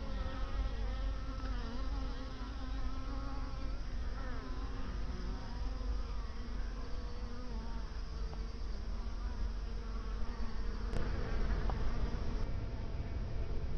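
Honeybees buzzing (native black bees, Apis mellifera mellifera): a continuous hum whose pitch wavers, over a low rumble, changing abruptly about eleven seconds in.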